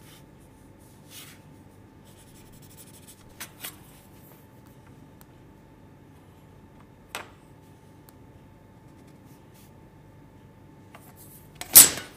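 Pencil scribbling hatching lines across a pine board to mark the waste to be cut out, with a few light clicks. Near the end comes a louder sharp scrape and knock.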